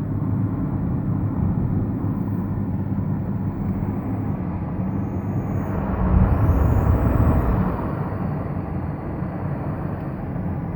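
BMW 530d E39's turbocharged straight-six diesel running, with a thin high turbo whine that rises and falls in pitch around the middle as the engine surges louder for about a second and a half.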